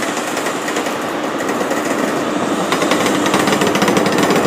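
Chiltern Railways Class 165 diesel multiple unit pulling out, its underfloor diesel engines running with a fast, steady clatter over wheel and track noise, growing slightly louder toward the end.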